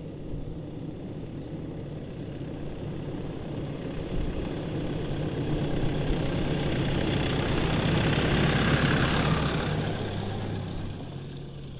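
A four-wheel-drive vehicle driving past on a dirt track, its engine and tyres getting louder to a peak about eight or nine seconds in, then fading as it moves away, with the engine note dropping as it goes by.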